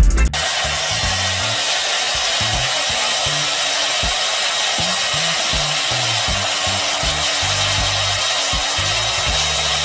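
Hair dryer blowing steadily.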